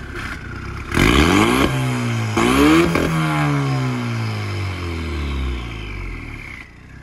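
Straight-piped, turbocharged Ford EcoBoost engine swapped into a Toyota Celica, blipped twice about a second apart from a low idle, then the revs falling slowly back down with a high whine trailing off.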